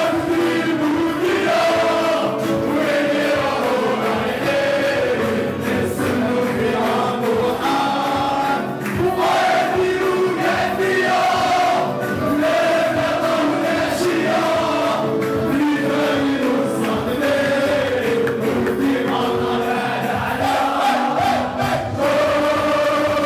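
Many male football supporters singing a terrace chant together in unison, loud and continuous, with sharp hits marking the beat.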